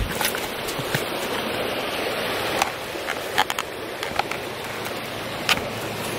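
A sheet of birch bark handled and bent in gloved hands, giving several short sharp crackles and clicks, the clearest about midway and near the end, over a steady rushing background.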